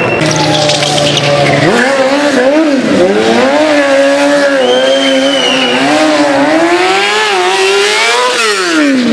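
Motorcycle engine revving hard during stunt riding, its pitch rising and falling with the throttle, climbing to a peak and then dropping sharply near the end. A brief tyre squeal comes in partway through.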